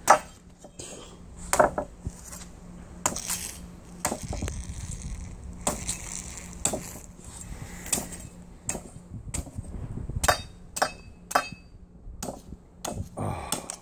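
Machete chopping into a young green coconut on a wooden plank: a series of sharp chops and knocks, roughly one a second.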